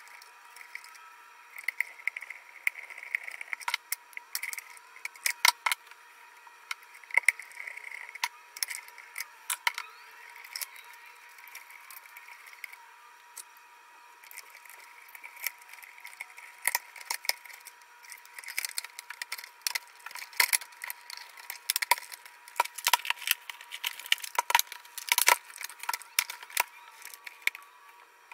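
Irregular clicks and light rattles of wires and plastic housing parts being handled and pressed into place inside a Zojirushi water boiler during reassembly.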